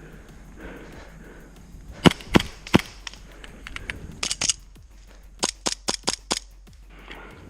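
Airsoft gas blowback pistols firing: three sharp shots about two seconds in, a quick pair a little past the middle, then a rapid string of about six shots.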